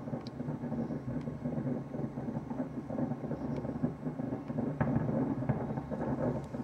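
Distant fireworks booming, the reports merging into a continuous rolling rumble, like far-off thunder, with a few faint sharp cracks. The rumble swells near the end.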